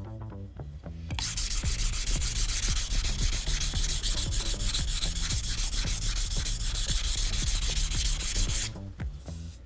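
Steel kitchen knife blade, a VG10 nakiri, stroked rapidly back and forth on a wet whetstone: a steady scraping starting about a second in and stopping near the end.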